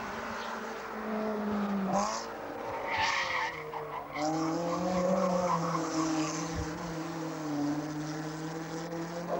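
Small racing saloon car's engine pulling hard uphill. Its note drops sharply about two seconds in, as at a gear change, then holds fairly steady, with a brief squeal of tyres around the hairpin.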